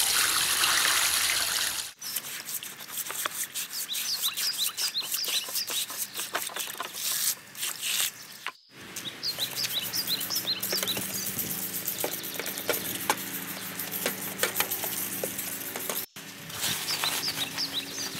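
Water poured from a bucket splashes into a plastic tub of soaking grill grates for about the first two seconds. Then birds chirp in quick short notes, with scattered small clicks.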